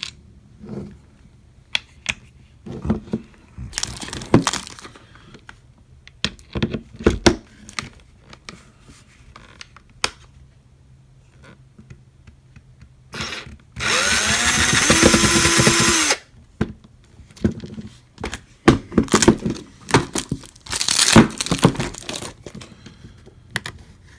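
Plastic housing parts of a staple gun being handled and pried apart, with scattered clicks and knocks. About fourteen seconds in, a small electric power-tool motor spins up, runs steadily for about two seconds and stops; it is the loudest sound.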